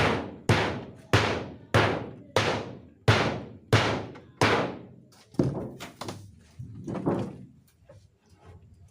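Heavy blows struck in a steady series on a refrigerator cabinet being broken apart for scrap, about one and a half blows a second, each with a short ringing tail. About halfway through the blows become weaker and fewer.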